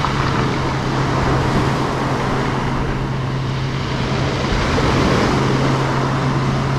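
Motor of a small fishing boat running steadily as it approaches, a low steady hum over a broad wash of noise.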